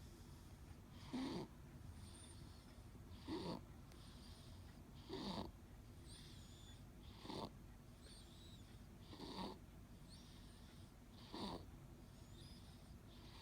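A four-month-old baby snoring in deep sleep: a short snore with a falling pitch about every two seconds, six in all.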